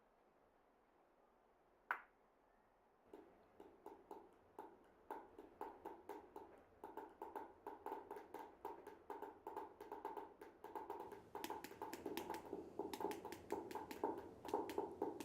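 A pen tapping on a desk in a repeated rhythm. A single click comes about two seconds in. The tapping starts about a second later, then gets faster and louder.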